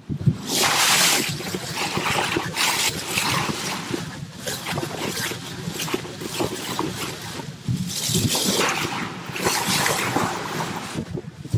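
Water rushing and splashing along a sailboat's bow as it moves through the sea, mixed with wind on the microphone, the hiss swelling and fading in surges.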